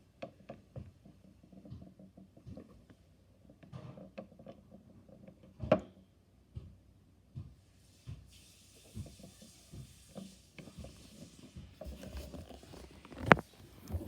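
Close handling of a small mochi squishy toy being washed: scattered soft taps and squelches, with two sharper knocks, the louder one near the end. A steady hiss runs from about eight to twelve seconds in.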